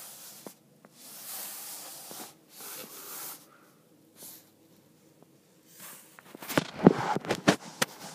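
Hard plastic action figure being handled: soft rustling and brushing, then a quick run of sharp plastic clicks and knocks about six to eight seconds in.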